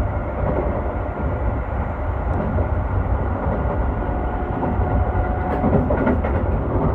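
Keio 5000 series electric commuter train running at speed, heard from inside a passenger car through the window glass: a steady low rumble of wheels on rail with a faint steady whine. A few sharp ticks come near the end.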